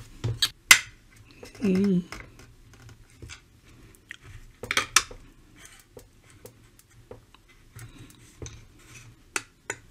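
A screwdriver tip scraping and clicking against the radio's metal chassis frame and a brittle diffuser sheet as it is prised out: scattered sharp clicks and short scrapes. A brief hum from a voice comes about two seconds in.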